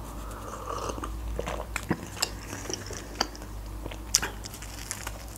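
Close-miked chewing of a mouthful of soft sandwich, with scattered sharp wet mouth clicks and smacks.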